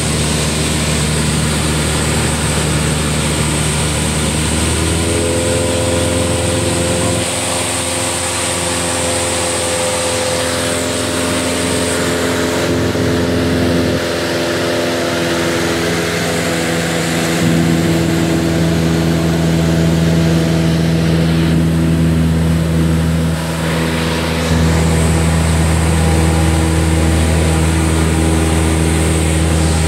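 Cessna light aircraft's piston engine and propeller droning steadily in flight, heard inside the cabin with air rushing past. The engine note shifts a few times and gets louder in two steps, about halfway through and again near the end.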